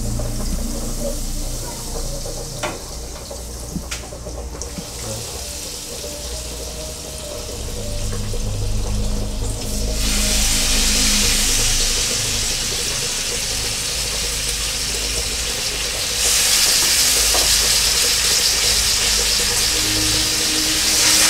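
Low steady hum with a few light knocks, then about ten seconds in a loud hiss starts and grows louder around sixteen seconds: seasoned slices of permit jack sizzling in hot oil in the pot.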